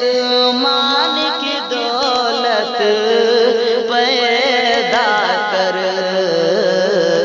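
Devotional naat singing: a man's voice drawing out long, wavering melodic lines without clear words, over a steady held note.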